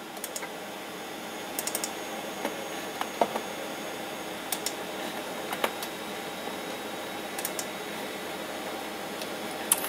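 A computer mouse being clicked, short, sharp clicks scattered a few seconds apart, over the steady whir of a running desktop computer.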